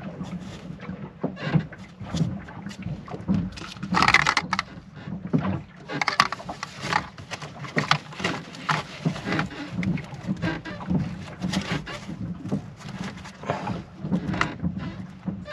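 Irregular clicks, knocks and scrapes of hands handling and turning over a boat motor controller and its wiring, over a steady low hum.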